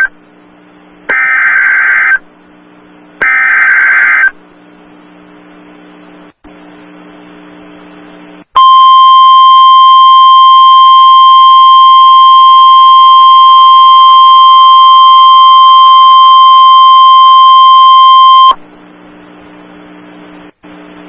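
Emergency Alert System signal for a tornado emergency: two harsh, buzzy bursts of digital header data about a second apart, a few seconds of faint static, then the long steady single-pitch EAS attention tone. The attention tone holds for about ten seconds and cuts off suddenly.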